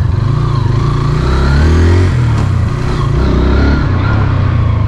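Hero Xtreme 160R 4V's single-cylinder four-valve engine and exhaust running at low road speed, the revs rising and dropping back a couple of times as the throttle is opened and eased.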